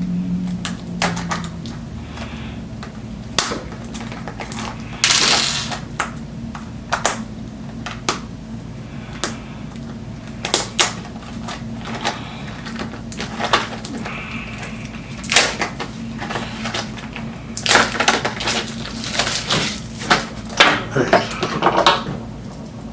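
Packaging of a set of roller skate bearings being picked and torn open by hand with a pen: irregular clicks, taps and crinkling rustles over a steady low hum.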